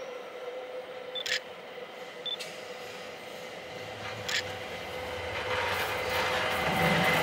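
A Montreux Oberland Bernois ABe 4/4 'Alpina' electric multiple unit approaches, its rumble and motor whine building steadily louder over the last few seconds. Earlier, a camera shutter clicks three times, each just after a short beep, over a steady low hum.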